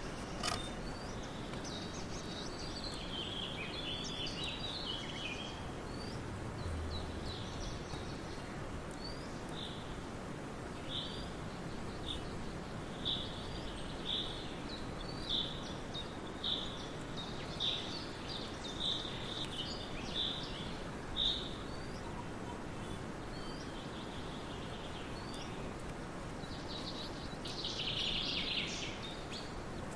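A bird calling outdoors: short high notes repeated about once a second for a stretch, with bursts of busier chatter near the start and near the end, over a steady background hiss.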